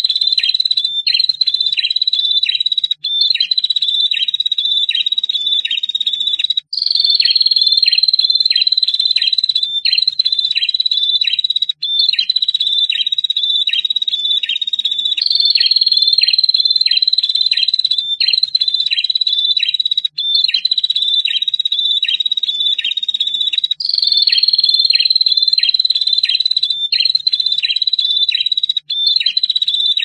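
Prinias (prenjak), male and female, calling in a long high trill. Rhythmic dropping notes come about two a second, in phrases that repeat every few seconds with brief breaks between them.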